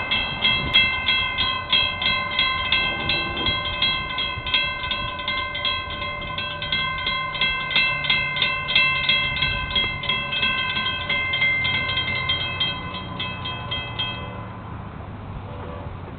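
Railroad grade-crossing warning bell ringing in rapid, even strokes, then stopping abruptly about three-quarters of the way through as the crossing clears and the gates rise. A low rumble runs underneath.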